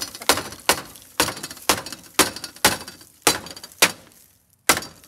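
A run of sharp knocks, about two a second, each dying away quickly, with a short gap about four and a half seconds in.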